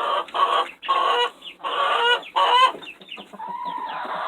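A flock of young laying hens clucking and calling: a string of short calls in quick succession, then one longer drawn-out call near the end.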